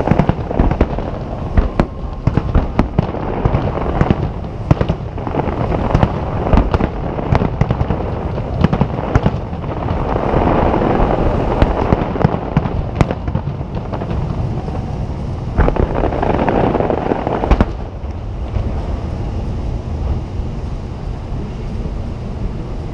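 Nagaoka aerial firework shells bursting in quick succession, many sharp bangs overlapping, with two stretches of dense crackling near the middle. The bursts thin out toward the end.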